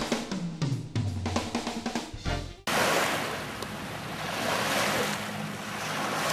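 The end of a drum-and-brass title jingle, which cuts off abruptly about two and a half seconds in. It gives way to the steady rush of wind and small waves on the lakeshore.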